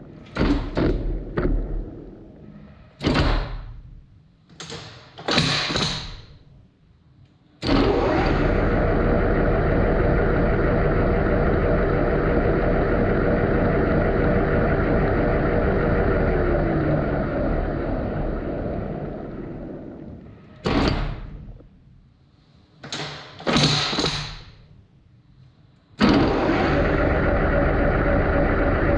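Lathe spindle running steadily, then winding down to a stop twice and starting again abruptly each time. While it is stopped there are several sharp clunks as the lathe's speed setting is changed.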